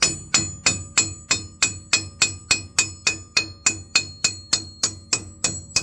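Hammer blows on an old wheel stud, knocking it out of the rear wheel hub: a steady run of about three strikes a second, each with a bright metallic ring.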